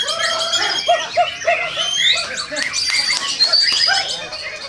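Many caged songbirds singing at once in a contest: dense, overlapping chirps, rising and falling whistles and rapid trills.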